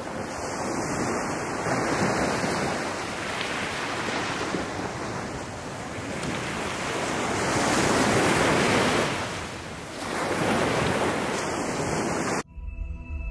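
Sea surf washing in and drawing back on a rocky shore, swelling and ebbing in slow surges. About twelve seconds in it cuts off sharply and music begins.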